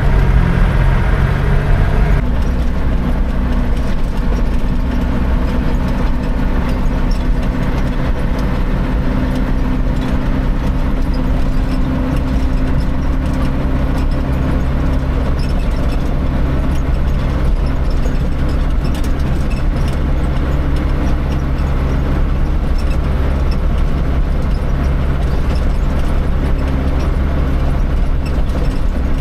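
Dump truck engine running steadily with a low, even hum; its note shifts slightly about two seconds in and then holds.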